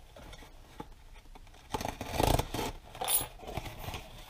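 A small blade slitting the packing tape on a cardboard shipping box, faint and scratchy at first. From about two seconds in come louder scraping and tearing sounds as the tape gives and the cardboard flaps are pulled open.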